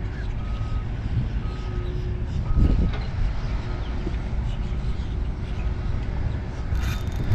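A vehicle's reversing beeper sounding about once a second, three short beeps in the first few seconds, over wind rumble on the microphone.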